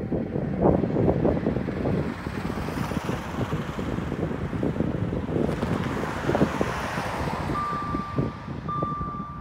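A car drives past on the road over rough wind noise on the microphone. About eight seconds in, the crossing's GZT30 electronic warning signal starts: a steady high beep in long tones about a second each with short breaks, warning of an approaching train.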